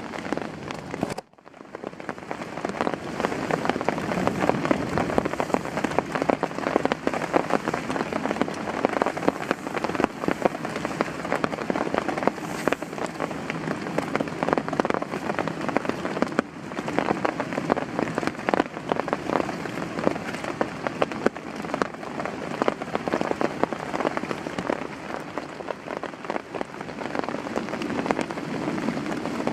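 Heavy rain falling steadily, a dense spread of individual drops hitting surfaces. The sound cuts out briefly about a second in.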